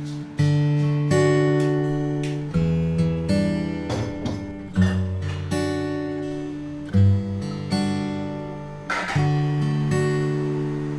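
Background music: chords struck about every second or so and left to ring out.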